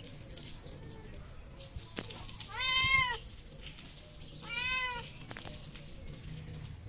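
A stray cat meowing twice, about a second and a half apart, each meow rising then falling in pitch; the first is the louder.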